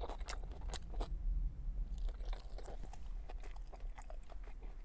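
A person chewing a mouthful of Subway sandwich close to the microphone: irregular wet clicks and soft crunches from the bread and lettuce, several a second.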